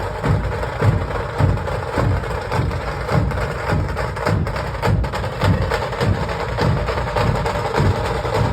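Dhol-tasha pathak playing: massed dhol drums pounding a steady beat, with a dense rattle of sharp stick strokes from the tasha drums over it.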